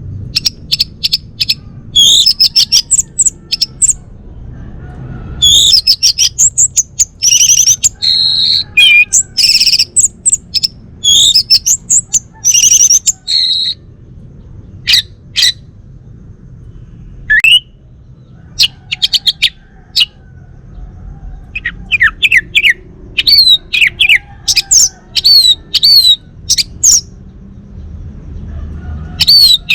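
Male orange-headed thrush (anis merah) singing loudly: bursts of quick, high, varied notes and sweeping whistles in phrases of a few seconds, separated by short pauses, with a few single notes in the middle.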